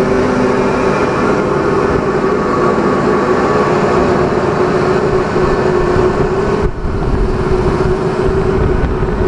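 Yulong MXJ218 sawdust making machine running, driven by its 110 kW electric motor: a loud, steady mechanical drone with a steady hum-like tone and a low rumble underneath.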